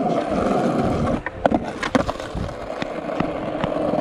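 Skateboard wheels rolling over rough asphalt, a steady rolling noise, with a cluster of sharp clacks from the board about a second and a half in.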